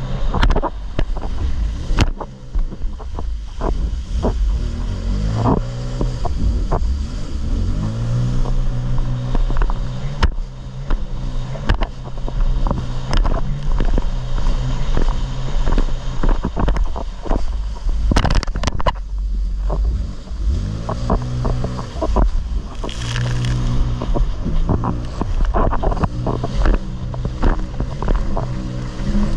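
Jet ski engine running under throttle, its pitch sweeping up and holding high several times as it accelerates, over a heavy low rumble with frequent sharp knocks.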